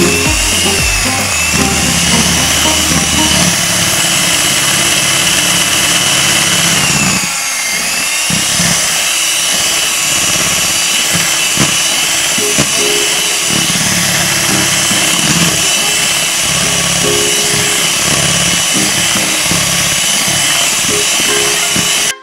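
Electric hand mixer running steadily, its beaters whipping eggs and sugar into a thick, pale sponge-cake batter, with background music underneath. The motor's whine dips briefly about seven seconds in.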